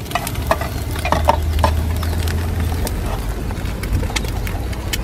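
Egg frying in a small pan on a portable gas camping stove: scattered crackles and spits over a low steady rumble, with a few short chirps between about half a second and two seconds in.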